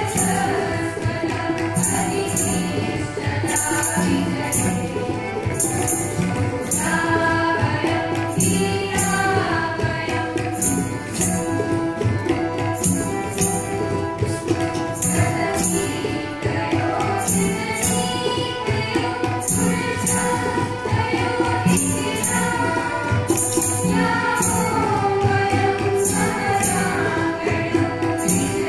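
A group of girls singing a song together in unison into microphones, over a steady jingling percussion beat.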